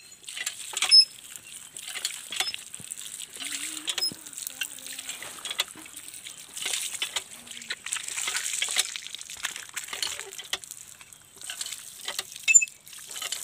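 Water from a hand-pump tubewell splashing and trickling onto a wet stone slab as feet and sandals are rinsed under it, with uneven splashes.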